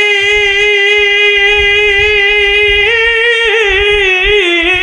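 A man's voice singing one long drawn-out note over microphones in the melodic chanting style of a Bangla waz sermon. The note holds steady for about three seconds, then breaks into wavering ornamental turns and slips a little lower near the end.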